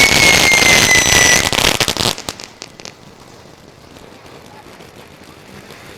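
Winda Spartan Screamer 500-gram firework fountain burning with a loud hissing crackle and a whistle that slowly falls in pitch. The whistle stops about a second and a half in, and the fountain burns out about two seconds in, with a few last crackles.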